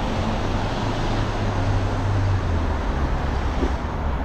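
Road traffic on a busy multi-lane street: cars driving past, a steady low rumble with hiss over it.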